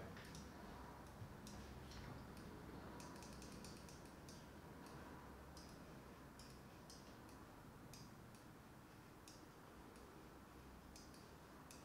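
Near silence: quiet room tone with faint, scattered clicks of a computer mouse and keyboard, some coming in quick little runs.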